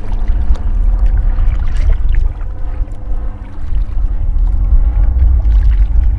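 A kayak paddle dipping and stroking through the water, under a loud, steady low rumble.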